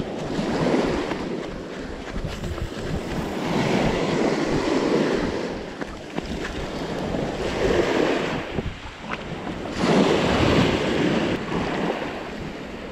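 Small waves washing up on a sandy shore, swelling and fading every few seconds, with wind buffeting the microphone.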